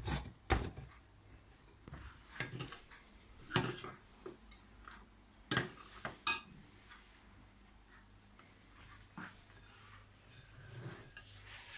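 Scattered clinks and knocks of kitchen utensils and cookware, about a dozen separate taps, over a faint steady low hum.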